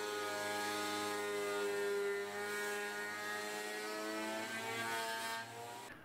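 Scheppach HMS 850 planer-thicknesser running with a steady whine, fading away over the last second or so.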